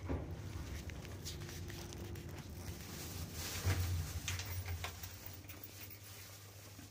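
Passenger lift car travelling up one floor: a low steady hum with scattered light clicks and rattles, easing off toward the end as the car arrives.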